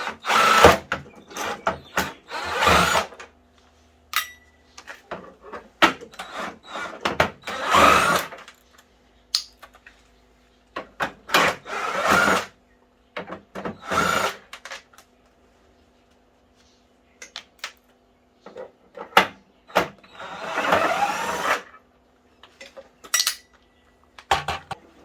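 A power drill run in short bursts of about a second, six or so times, while an exercise bike is taken apart. Between the bursts come clicks and knocks of parts and tools being handled.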